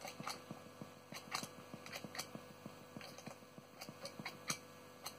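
Footswitches on a Loopy LP8 true-bypass loop switcher clicking as they are pressed, several irregular clicks. Under them runs a steady faint hum and a faint rapid ticking about four times a second, which the player puts down to his tremolo pedal.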